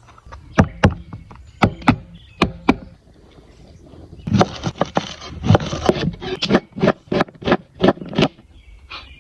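A series of sharp knocks: a few spaced strikes, then a quicker run of several a second from about four seconds in until about eight seconds in.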